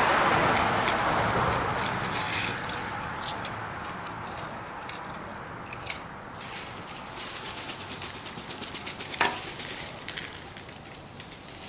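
Dry tinder materials rustling and crackling as they are handled: a loud rustle fading over the first couple of seconds, then scattered small crackles, with one sharp click about nine seconds in.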